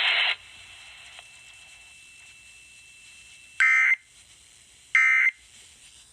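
Emergency Alert System end-of-message data bursts: two short, harsh digital tone bursts about a second apart, marking the end of the alert. Just before them, a loud hiss from the alert audio cuts off right at the start.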